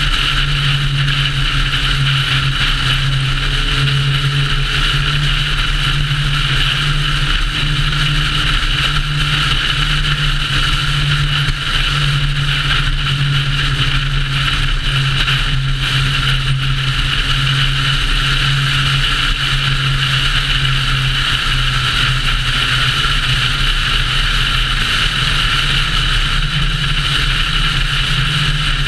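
Car cruising at steady highway speed: a constant low engine drone under steady road and wind noise, with no change in speed.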